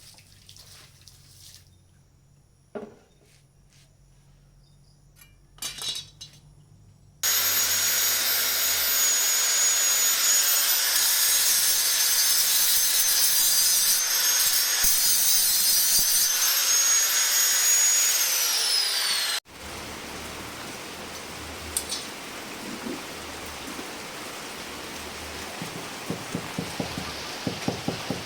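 Power tool working on steel for about twelve seconds, a loud, steady gritty noise with a high whine, which stops abruptly. Before it there are a few light knocks; after it a quieter steady hiss with scattered small clicks.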